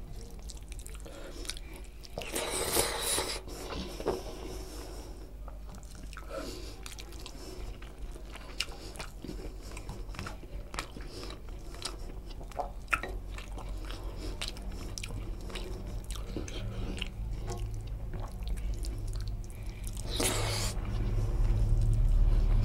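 Close-miked chewing and wet mouth sounds of a person eating rice and chicken curry with his hand, with scattered small smacks and clicks, and fingers squishing and mixing rice on the plate. Two louder rushing bursts stand out, about two seconds in and near the end.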